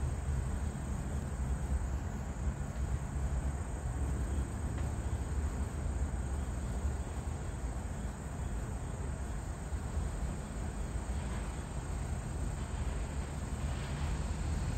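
Insects droning steadily over a low, steady rumble.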